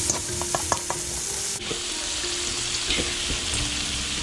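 Onions, green chillies and tomatoes sizzling in hot oil in a pan while being stirred, with a few light clicks of the spoon against the pan in the first second.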